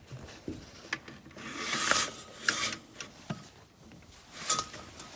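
Rubbing and scraping of something being handled, in a few short strokes, with a sharp click about a second in.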